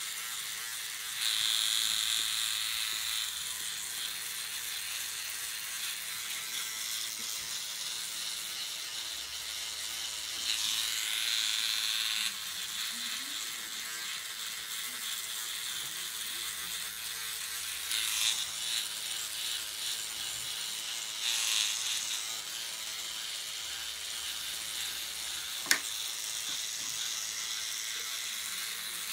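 Electric microneedling pen buzzing steadily as it is worked over the skin, its high buzz growing louder for a second or two several times. A single sharp click near the end.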